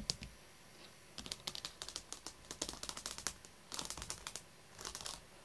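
Rapid light tapping and clicking in several quick runs, much like typing: a long run in the first half, then two shorter bursts near the end.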